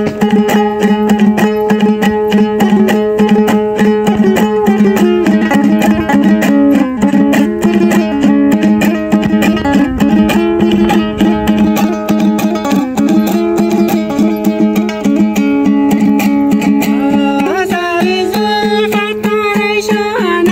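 Dambura, the Hazara long-necked two-string lute, strummed rapidly in an instrumental passage of a Hazaragi folk song: a steady drone note under a stepping melody. Near the end a voice begins singing over it.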